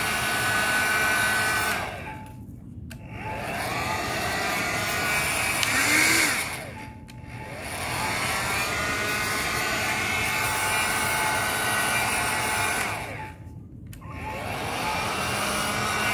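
Hand-held hair dryer blowing steadily. Three times, about two, seven and thirteen seconds in, its motor slows and the blowing drops, then it speeds back up.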